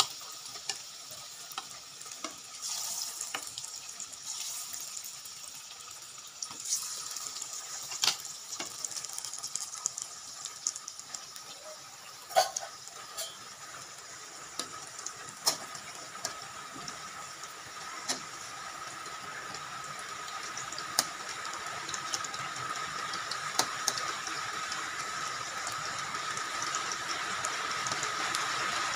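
Battered banana pieces deep-frying in a wok of hot oil: a steady sizzle scattered with sharp clicks and pops, growing louder toward the end.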